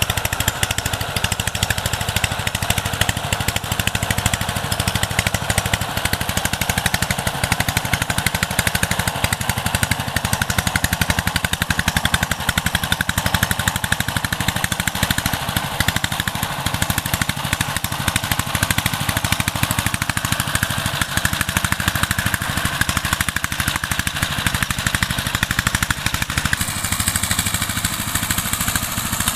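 A 12 HP single-cylinder diesel engine on a two-wheel power tiller, running steadily under load with a rapid, even chugging beat as it tills a flooded paddy field.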